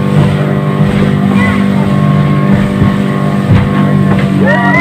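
Outboard motor of a speedboat running at speed, a steady loud drone, with water rushing past the hull.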